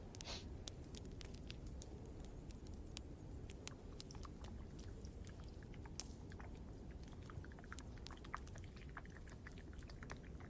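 Wood campfire crackling: irregular sharp pops and snaps over a low steady rumble.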